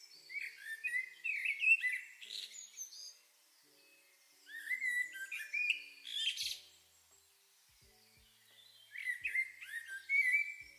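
Songbird singing in three short bouts of rapid chirps and whistled notes, with quiet gaps between them.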